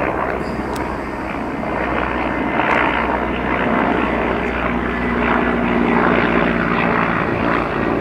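Helicopter flying overhead: steady rotor and engine noise that grows a little louder a few seconds in.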